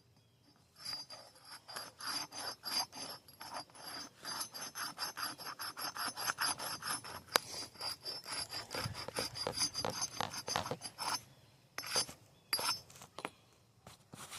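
Steel axe blade being scraped back and forth on concrete to sharpen it: a run of quick rasping strokes, about three a second, that stops about eleven seconds in, followed by a few single strokes.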